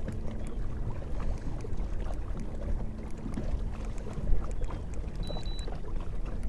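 Wind rumbling on the microphone and water lapping against a small boat's hull, with many small splashy ticks. A faint steady hum stops about four seconds in.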